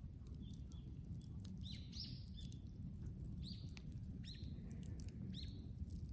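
A bird calling over and over, short high notes about every half second to a second, over scattered sharp crackles and a steady low rumble from a brushwood bonfire.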